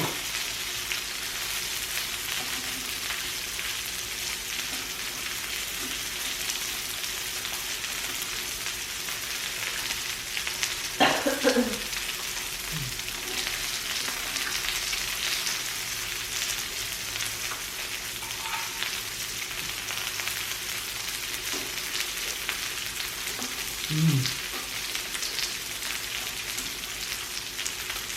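Pork belly sizzling on a tabletop grill: a steady hiss of fat frying with fine crackle. There are two short voice sounds from a person, about 11 and 24 seconds in.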